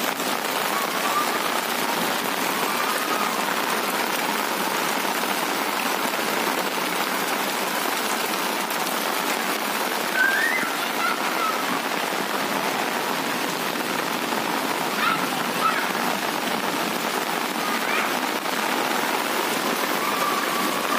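Heavy rain falling steadily on a paved street and walls, a constant, even hiss.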